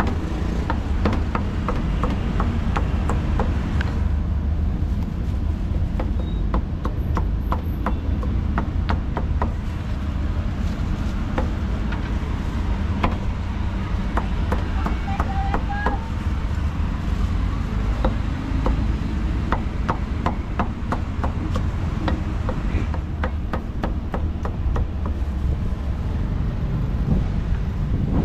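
A cleaver chopping braised pork on a thick round wooden chopping block: runs of quick, sharp knocks with short pauses between them, over a steady low background rumble.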